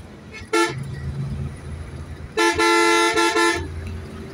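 A road vehicle's horn honking: one short toot about half a second in, then a quick run of about four toots a couple of seconds later. The vehicle's engine and tyre rumble runs underneath.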